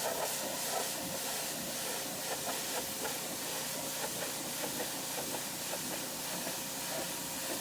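Pressure washer spraying, a steady hiss of water jetting onto a hard surface, with a steady tone running underneath.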